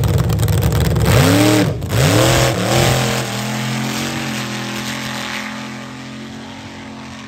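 Jet-engine drag racer launching at full thrust: a loud roar, with the pitch swooping up and down a few times about a second in, then fading steadily as the car pulls away down the strip.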